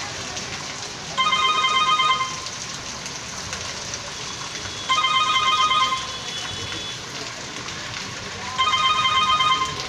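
A phone ringing three times, each ring about a second of rapid trilling beeps, over the steady hiss of heavy rain.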